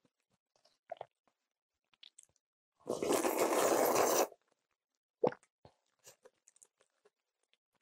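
A loud slurp of kalguksu noodles and broth sucked in off a wooden spoon, lasting about a second and a half from about three seconds in, followed by a few soft clicks of chewing.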